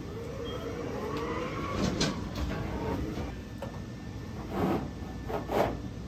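Sheet-metal furnace blower assembly being slid back into its cabinet: metal scraping and sliding with a wavering squeal over the first two seconds, then metal clunks about two seconds in and twice near the end.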